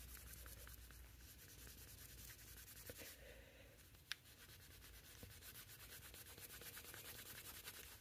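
Faint rubbing of a cloth buffing polish off the Cellidor handle scales of a Swiss Army knife, with a single small click about four seconds in.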